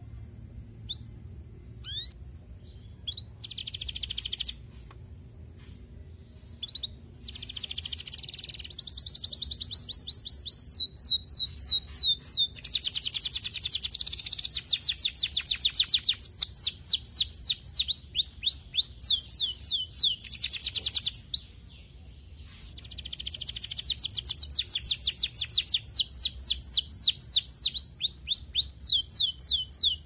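Domestic canary singing. A few scattered chirps come first, then from about seven seconds in long song phrases of fast trills made of rapidly repeated sweeping notes. The song breaks off briefly a little past twenty seconds, then starts again with another trilling phrase.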